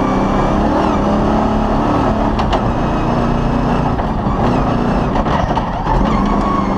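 Cross-country rally car's engine heard from inside the cockpit, running hard on a dirt track with its pitch rising and dipping as the throttle is worked. A couple of sharp knocks come about two and a half seconds in as the car jolts over the rough surface.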